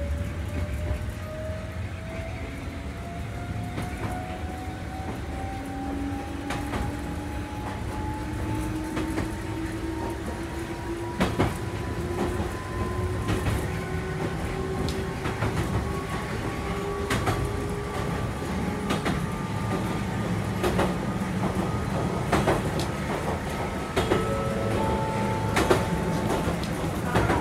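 Interior of a Wakayama Electric Railway 2270-series electric railcar under way: the traction motors whine in two tones that climb steadily in pitch as the train picks up speed, over a low running rumble. Rail-joint clicks come from the wheels, more often in the second half.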